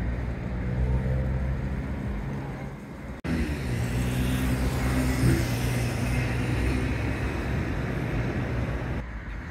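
A motor vehicle engine running steadily with a low hum, heard amid outdoor street noise. The sound drops out for an instant about three seconds in.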